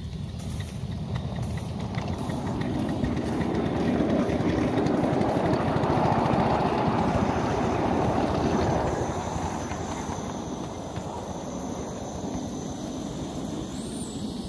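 5-inch gauge Minx tank steam locomotive running under steam: a steady rush of exhaust steam with the rattle of its wheels on the rails. It builds over the first few seconds and eases off after about nine seconds.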